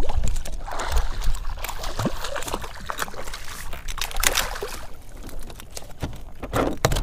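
Splashing and sloshing water as a hooked redfish (red drum) thrashes beside a kayak and is lifted out, with a few sharp splashes among irregular dripping and trickling. Wind buffets the microphone throughout.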